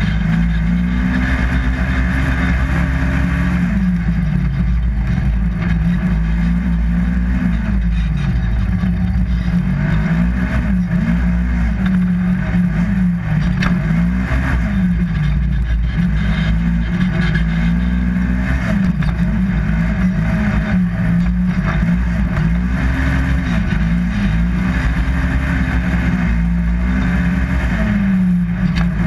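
2015 Polaris RZR 1000XP side-by-side's twin-cylinder engine racing. Its pitch rises and falls every two or three seconds as the throttle is opened and let off.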